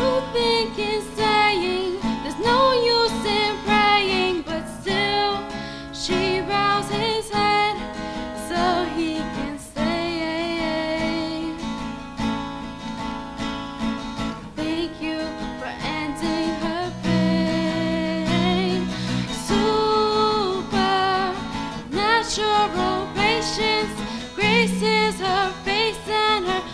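A woman's voice singing a melody over acoustic guitar chords strummed by a second player: a live voice-and-guitar acoustic performance.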